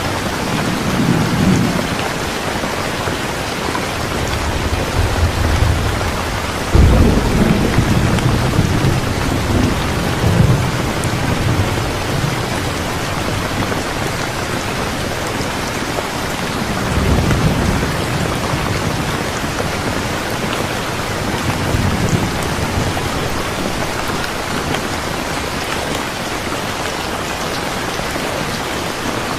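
Steady rain with thunder rumbling low several times; the loudest rumble starts suddenly about a quarter of the way in and rolls on for a few seconds.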